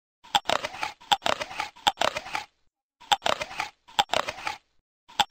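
Juicy crunching of bites into a crisp watermelon slice, in about five separate bursts, each beginning with a sharp crack, with short silences between them.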